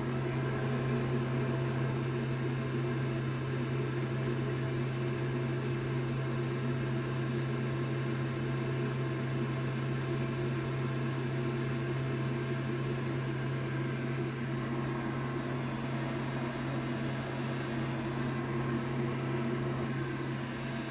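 A steady low-pitched hum with fainter higher tones over an even hiss, unchanging throughout.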